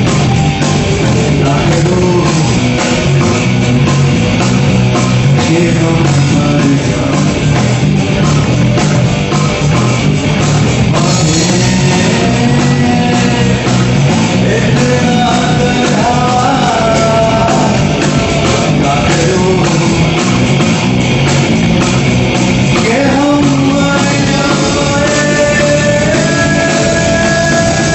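Rock music led by an electric guitar played through an amp. In the second half a lead line of long sustained notes with bends and vibrato comes to the fore.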